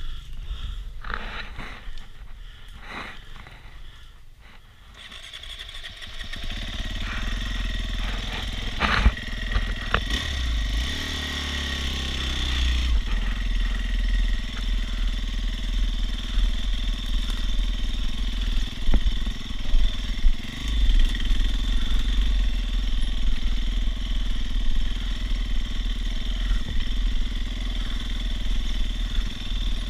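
Dirt bike engine running steadily after a quieter first few seconds that hold only a few knocks. The engine comes up about six seconds in, its pitch shifts briefly a few seconds later, then it runs evenly to the end.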